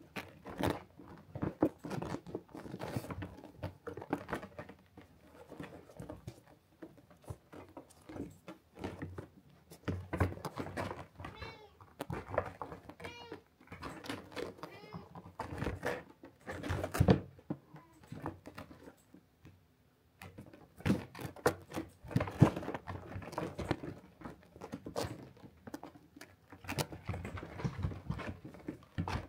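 Kitten playing on a felt cat bed: claws scratching and rustling on the felt in irregular bursts, with a few short high mews around the middle.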